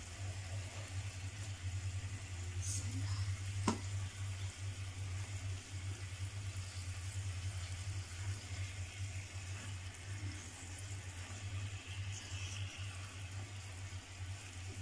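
Marinated chicken pieces sizzling gently in their masala juices in a nonstick frying pan as a spatula turns them over, with a single sharp click about four seconds in. A steady low hum runs underneath.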